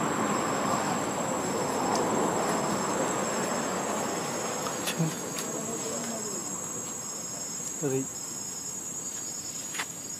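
Insects in chorus: a steady, high-pitched drone with a fainter chirp repeating a little more than once a second. Under it, a broad rushing noise that fades after the first few seconds, and a couple of brief low calls or knocks near the middle.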